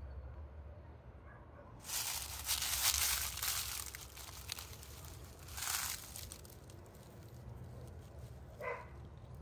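Dry fallen leaves crunching and crackling under sock-clad feet stepping over rocks, in two stretches: a longer one from about two seconds in and a shorter one just before the middle-to-late part.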